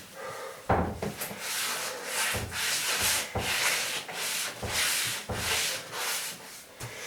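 Rhythmic back-and-forth scrubbing of a dirty kitchen floor, a rough scouring pad scraping over the floor surface in strokes of about two a second.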